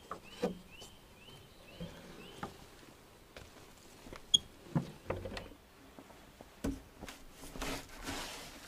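Scattered light knocks, clicks and rustling, with one sharp ringing click about four seconds in and a rustling patch near the end. A short chirp repeated several times fades out in the first two seconds.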